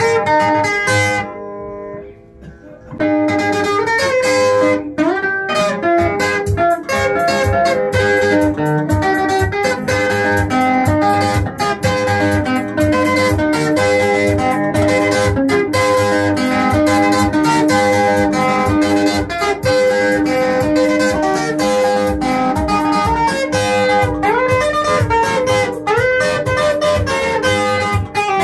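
Band music led by plucked electric guitar over a steady beat, with no singing. The music drops out briefly just over a second in and comes back about three seconds in.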